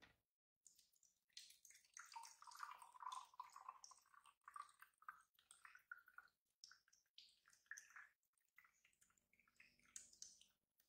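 Faint, irregular trickling and dripping of coconut water running from a cracked young coconut into a small glass jar.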